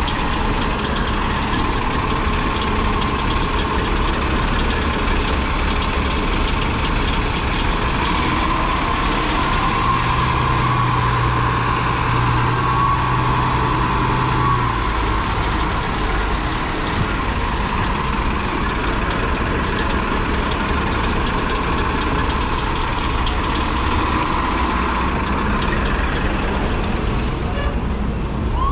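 Steady heavy road-traffic rumble, with a siren starting to wail right at the end.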